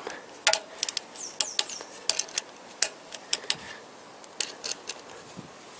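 Click-type torque wrench on the camshaft bearing-cap bolts of a Toyota VVT-i cylinder head: a string of irregular sharp clicks and metal taps as each bolt is rechecked and the wrench clicks at its set torque, about 15 N·m. Two short falling whistles sound about a second and a half in.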